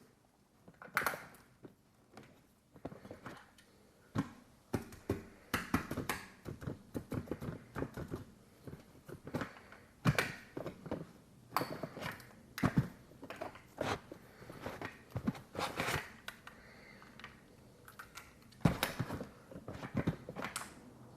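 Irregular clicks, taps and light knocks from a 1:24 scale diecast model car being handled, with its small parts clicking open and shut and brief plastic rustles between.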